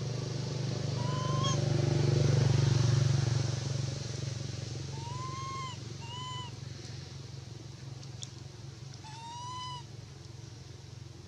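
Infant macaque giving four short coo calls, each rising and then falling in pitch, the second and fourth longer than the others. Under them a low engine hum swells over the first few seconds and then fades.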